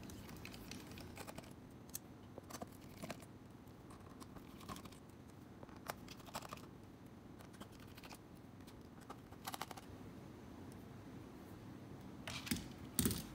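Faint, scattered small clicks and scrapes of a small screwdriver backing out the tiny screws that hold a laptop keyboard in its frame, with light taps against the keys and plastic, and a few louder clicks near the end.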